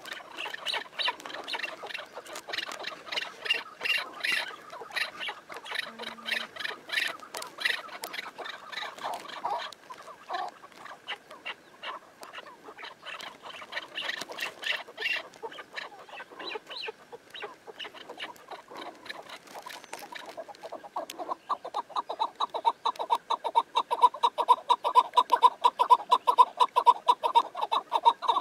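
Chukar partridges calling: rapid, repeated cackling notes from several birds. From about three quarters of the way in, one bird close by calls in a louder, steady fast run of notes.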